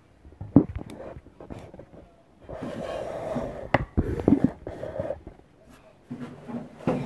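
Handling noise from a phone being moved in the hand: rubbing against the microphone, with sharp knocks about half a second in and twice near four seconds.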